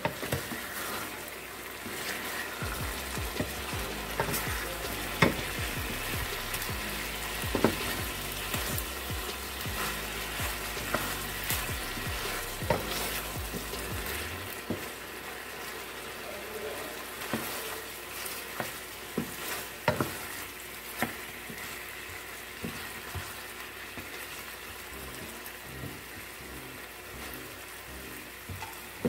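Seasoned chicken pieces sizzling as they brown in a stainless steel pan, stirred and turned with a wooden spoon that knocks against the pan every few seconds.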